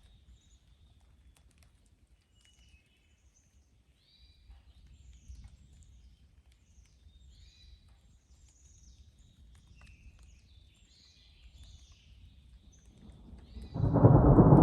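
Forest birds singing faintly, many short falling chirps, with a few scattered clicks. Near the end a loud thunderclap breaks in suddenly and rumbles on.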